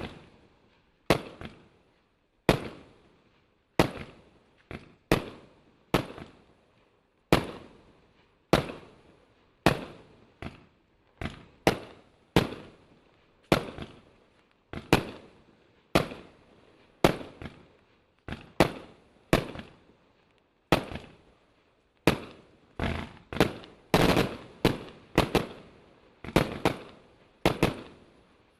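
Imperial Salute firework fires a series of sharp salute bangs, each with a short echoing tail, at about one a second. The bangs come faster and overlap in the last few seconds.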